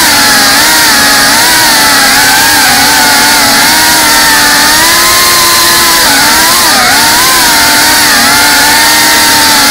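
GEPRC CineLog35 cinewhoop's brushless motors and ducted propellers whining loudly in flight, the pitch rising and falling as the throttle changes.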